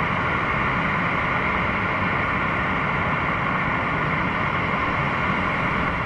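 Boeing 737's twin turbofan engines running at taxi idle: a steady hiss with a whine in it.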